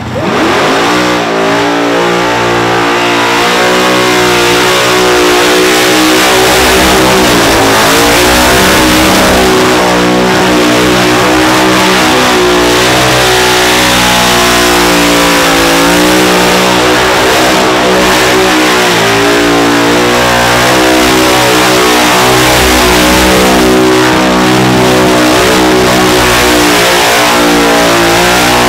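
V8 burnout car's engine revving hard and held at high revs, with the hiss of spinning tyres.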